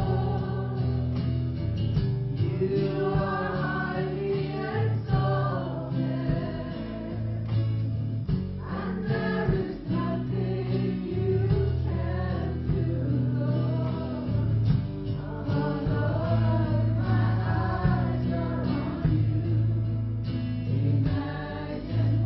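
Christian worship song: a choir singing over instrumental backing with sustained bass notes that change every second or two.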